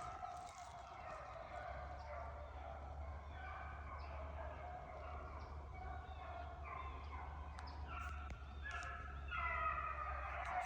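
A pack of beagles baying on a rabbit's trail: several dogs' drawn-out calls overlap, growing louder near the end as the hounds run the rabbit.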